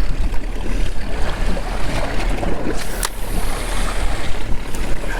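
Wind buffeting the microphone and sea water washing around a small fishing boat, over a steady low rumble, with one sharp click about three seconds in.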